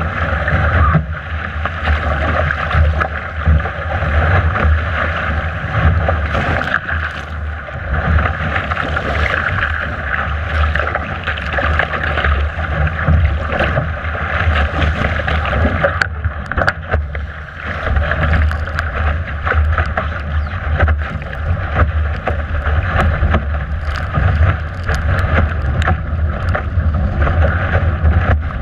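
Strong wind buffeting a deck-mounted camera microphone as a Laser dinghy surfs downwind in 22–29 knots, a constant low rumble over the rush and hiss of water along the hull, with frequent splashes of spray hitting the deck.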